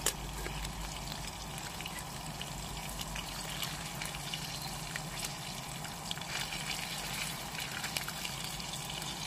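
Food sizzling in a frying pan on a camping stove: a steady hiss with many small scattered crackles, and a single sharp click at the very start.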